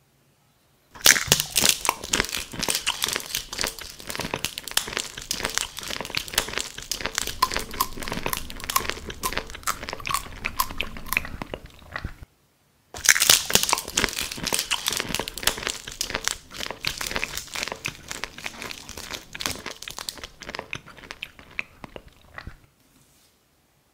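Paintbrush working thick paint on a canvas, heard as a dense, crunchy crackle. It starts about a second in, stops briefly just past halfway, picks up again, and thins out near the end.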